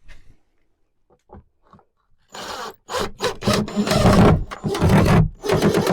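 A screw being driven into a thin, dry mahogany ceiling plank with a power driver, in several short bursts after a couple of quiet seconds.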